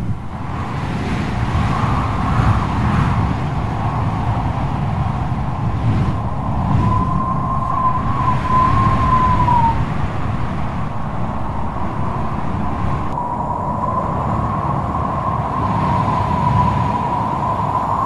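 Strong wind blowing with a low rumble, and a thin wavering whistle that comes in twice, briefly about seven seconds in and again from about thirteen seconds on.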